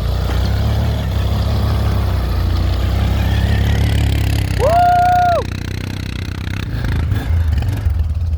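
Suzuki engine running hard under steady load, pulling a stuck vehicle free in snow; the drone eases off a little about five and a half seconds in. A short held high-pitched tone sounds just before it eases.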